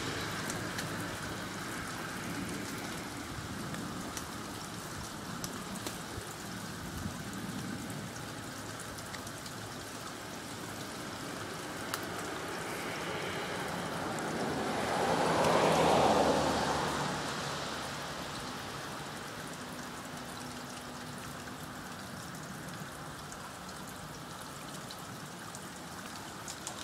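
Spring water pouring steadily from an outflow pipe and splashing below. About halfway through, the splashing swells louder for a few seconds, then settles back.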